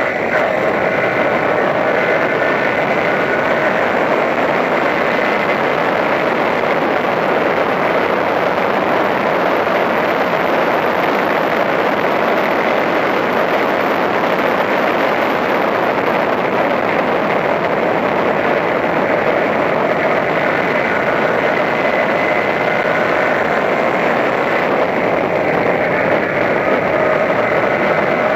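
Toyota Corolla Levin race car's engine running hard at racing speed, heard from inside the cabin with heavy road and wind noise. The engine note comes through clearer and changes pitch in the last few seconds.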